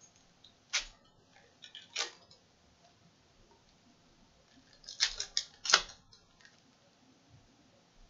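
Foil trading-card pack wrappers and cards being handled: short, sharp crinkles about one and two seconds in, then a quick run of several about five seconds in, the last one the loudest.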